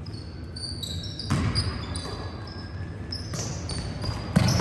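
Basketball game on an indoor court: sneakers squeaking on the floor and the ball bouncing, with louder thumps about a second in and near the end.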